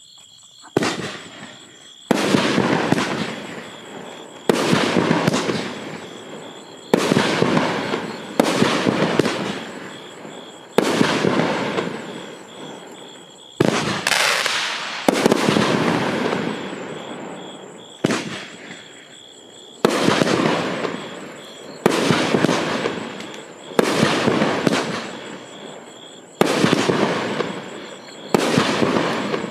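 A 500-gram consumer fireworks cake (Miracle Fireworks S.W.A.T Team, a 16-shot cake) firing its shots one after another, about one every two seconds. Each shot is a sudden bang that fades out over a second or two.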